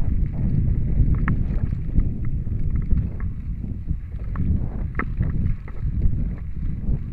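Scott Spark 10 mountain bike ridden fast on a dirt trail: wind buffeting the microphone and a steady rumble of the tyres over the ground, with scattered sharp clicks and rattles from the bike.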